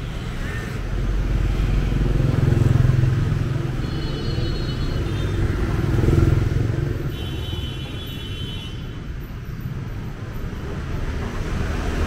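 Street traffic of passing motorbikes, their engine rumble swelling as vehicles go by about two and again about six seconds in. Two short high-pitched tones sound at about four and seven seconds.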